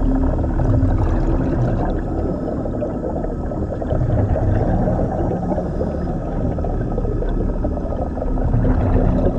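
Steady underwater rumble and bubbling from a surface-supplied commercial diver's air flow and exhaust, heard close to the helmet, with a low hum in the water at the start and again near the end.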